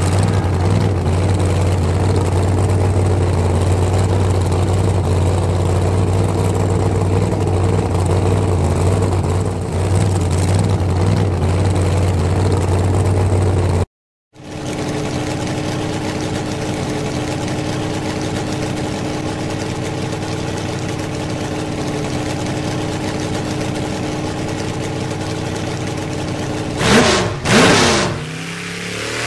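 Engine sound effect of a large vehicle idling steadily. It cuts out for a moment about halfway, then resumes at a different pitch, with two quick revs near the end.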